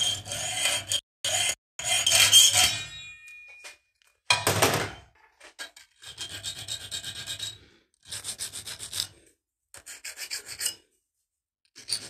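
Hand sawing and filing of a small metal piece clamped in a bench vise: short runs of quick back-and-forth scraping strokes with brief gaps between them, and one louder stroke a little past four seconds in.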